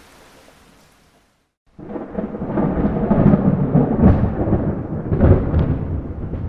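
Soft steady rain fades out in the first second or so. After a brief silent gap, a loud rolling peal of thunder sets in: a deep rumble with several sharper cracks, loudest through the middle and easing off near the end.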